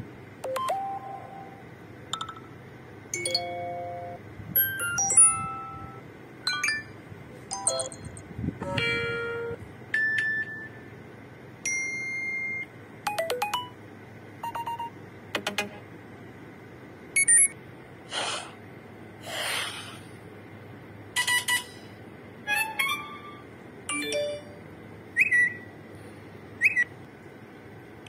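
iPhone 13 Pro Max alert tones previewed one after another from the phone's speaker: a quick series of about twenty short chimes, beeps and jingles, each lasting a second or less, with brief gaps between them.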